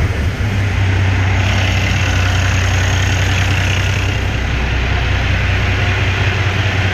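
Kenworth T660 semi truck's diesel engine idling steadily just after starting, left running so the fresh coolant circulates and air is purged from the cooling system.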